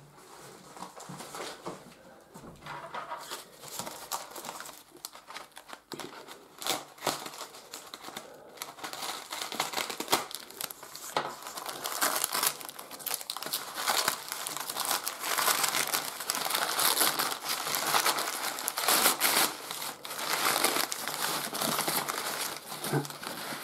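Brown kraft packing paper crumpling and crinkling as hands unwrap an item from it, with many sharp crackles. Fainter at first, then louder and denser from about ten seconds in.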